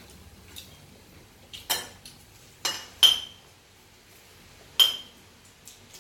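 Spoon clinking against a ceramic bowl about four times, two of the clinks ringing briefly.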